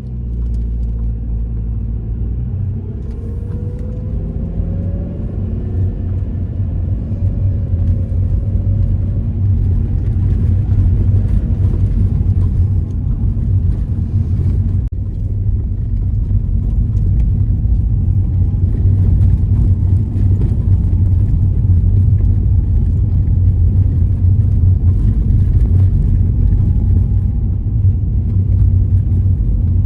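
Old Ford Focus hatchback driving along: a steady low rumble of engine and road noise, with the engine note rising a few seconds in as it picks up speed.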